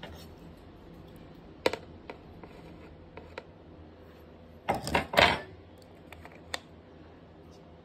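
Handling noise: a few sharp clicks and taps of small hard objects. About five seconds in comes a quick cluster of rattling knocks, the loudest sound.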